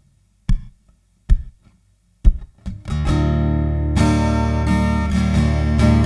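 Yamaha FGX830C acoustic-electric guitar played through a Yamaha THR30IIA acoustic amp on its condenser setting, recorded line-in. A few sharp percussive hits come roughly a second apart with silence between them, then full strummed chords ring out from about halfway in.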